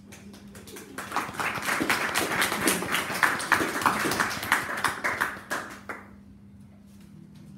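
A small audience clapping, starting about a second in, building, then dying away a little before six seconds in.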